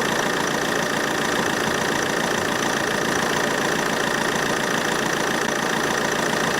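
Car engine idling steadily with the air conditioning switched on full, as the compressor draws refrigerant in from the recharge can. The sound is an even, unchanging running noise.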